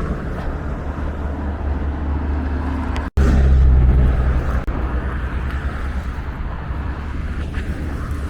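Street traffic: vehicle engines rumbling steadily. After a brief break about three seconds in, a louder, deeper engine rumble passes for about a second and a half.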